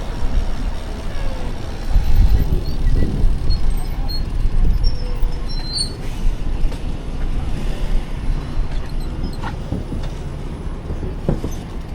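City street traffic heard from a moving bicycle: a steady, fluctuating rumble of vehicles and road noise, with a short sharp click near the end.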